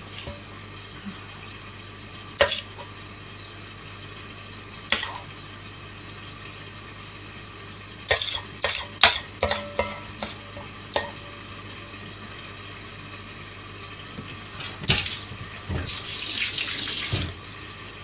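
Metal spoon clinking and scraping against a stainless steel mixing bowl while scooping pork filling: a few single knocks, then a quick run of clinks about eight to eleven seconds in, over a steady low hum. A brief rush of noise comes near the end.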